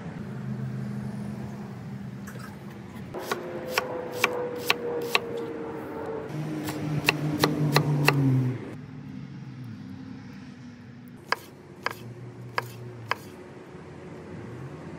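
A kitchen knife chopping cilantro on a wooden cutting board: runs of sharp knocks about three seconds in and again around seven seconds, then a few more strikes near the end. A low hum with a slowly falling pitch runs underneath in the first half.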